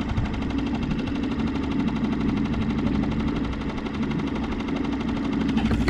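Small 3.5-horsepower Mercury outboard motor running steadily at a constant speed, a fast even chatter of firing pulses.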